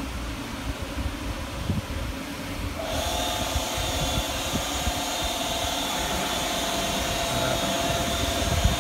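Automatic rollover car wash machinery running on a car. About three seconds in, a steady motor whine with a hiss over it starts up and holds, over an irregular low rumble and thumping.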